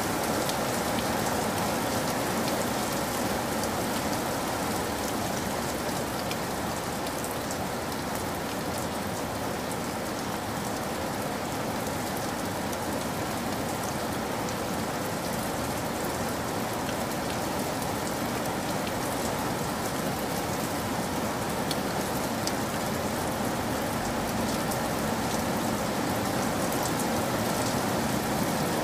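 Steady rainfall: an even hiss with fine scattered drop ticks, unchanging throughout.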